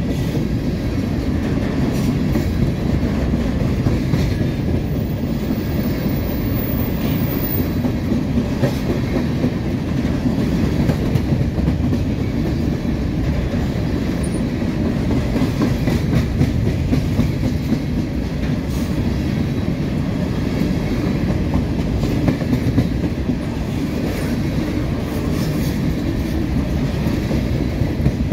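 Norfolk Southern covered hopper cars rolling past close by: a steady, loud rumble of steel wheels on the rails, with scattered clicks of wheels crossing rail joints.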